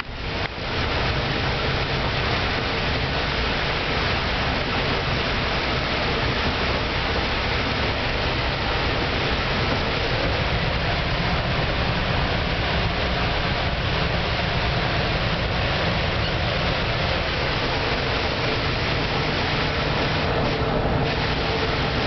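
Interior of a city bus on the move: the engine hums steadily under a constant hiss of road noise, the tyres running on wet streets.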